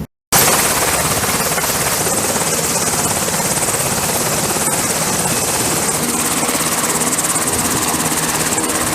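Aircraft running on a carrier flight deck: a loud, steady rush of engine noise with a thin high-pitched whine over it, starting abruptly just after the start.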